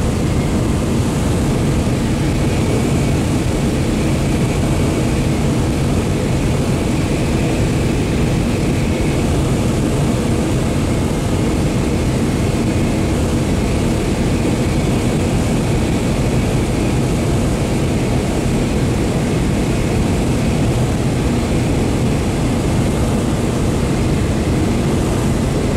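Light aircraft's piston engine and propeller running steadily, heard from inside the cockpit on the approach to land, with airflow noise over the cabin.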